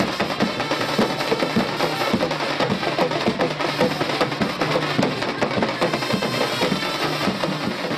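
A group of dhol drums, large double-headed barrel drums beaten with sticks, playing a fast rhythm together in a procession.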